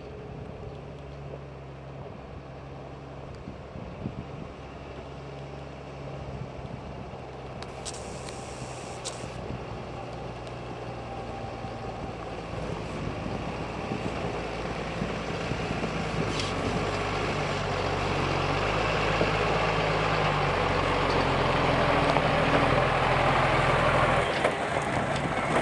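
Isuzu truck's diesel engine labouring at low speed under a full load up a steep track, its pitch shifting a few times and growing steadily louder as it comes close, then dropping away near the end as it passes. A brief hiss about eight seconds in.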